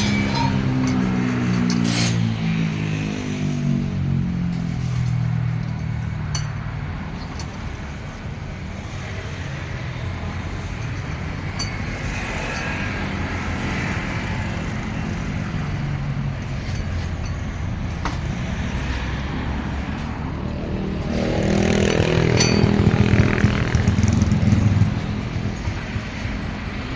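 Motor vehicle engines running on a road. One engine falls in pitch as it goes by at the start, a steady rumble fills the middle, and a second, louder engine passes about three quarters of the way through, with a few sharp clicks in between.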